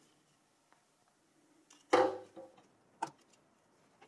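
Plastic intake fan modules of an HP ProLiant server being handled and pulled from their bays: a faint click, then a louder plastic knock about two seconds in and a sharp click about a second later.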